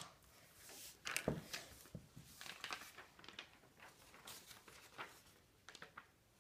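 Sheet of printer paper being handled and rustled: a string of soft, irregular crinkles and clicks, the loudest about a second in, dying away near the end.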